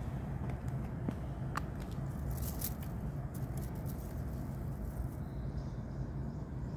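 Steady low outdoor background rumble, with a cluster of short crackles about two to three seconds in.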